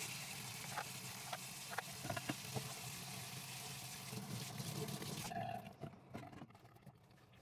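Kitchen tap water running into a stainless steel sink while a pressure cooker lid is rinsed, with small clinks and knocks of the metal parts being handled. The tap is shut off about five seconds in, leaving only a few clinks.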